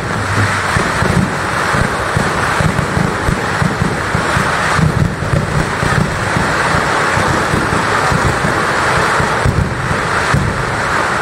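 Festival fireworks going off in a dense, unbroken barrage: many quick low bangs run together into a continuous thunder-like rumble over a steady hiss.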